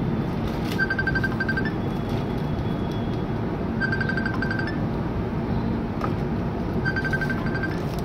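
A repeating electronic trill, a quick run of short high beeps about every three seconds, over a steady rumble of background noise.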